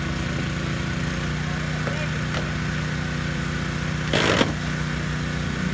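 Small gasoline engine of a portable hydraulic rescue-tool power unit running steadily at a constant speed. About four seconds in comes a brief loud burst of noise from the work on the car.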